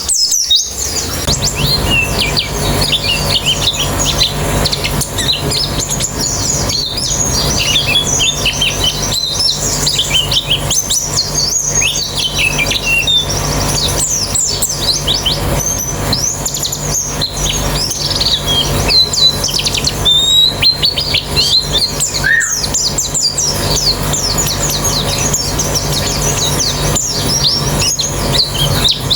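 A flock of white-eyes (pleci) chirping and trilling together in a dense, unbroken chorus of quick high notes. A steady low hum runs underneath.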